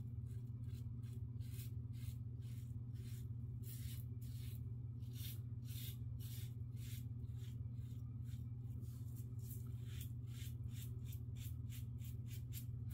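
Blackland Osprey safety razor scraping through lather and stubble on a cross-grain pass, in short quick strokes of about two to three rasps a second, over a steady low hum.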